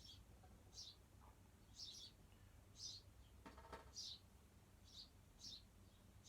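Birds nesting under garage eaves chirping: a string of short, high chirps repeating every half second to a second, over a faint steady low hum.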